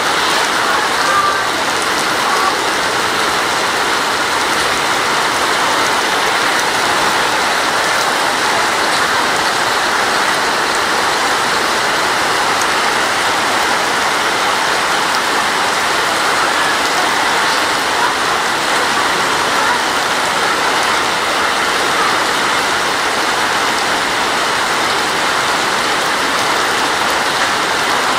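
Heavy rain pouring down steadily onto a wet road and paving, an even hiss that holds throughout.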